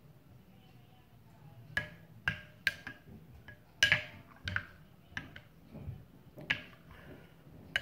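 A spoon clinking against a ceramic bowl as porridge is stirred and scooped: sharp, irregular clinks, about eight of them, starting about two seconds in.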